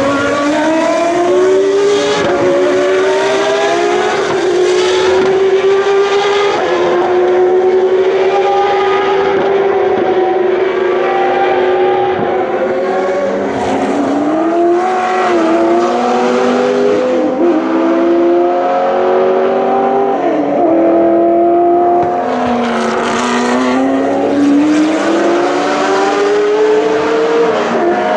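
Historic racing car engines running hard past the track, several overlapping one after another. Their pitch drops and climbs again and again through gear changes as the cars slow for the corner and accelerate away.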